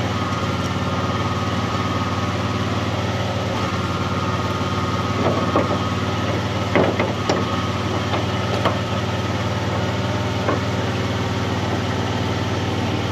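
Engine of a Miller engine-driven welder running at a steady speed with a low, even hum, with a few short crackles and clicks around the middle.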